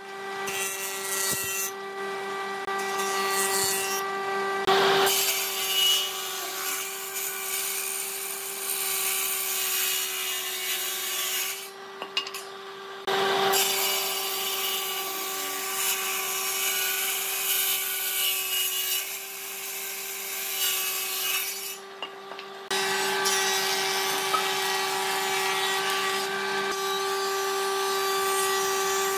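Stationary woodworking machines (a jointer, a table saw and a thickness planer) running and cutting wood: a steady whine over the hiss of the cutters, changing abruptly several times.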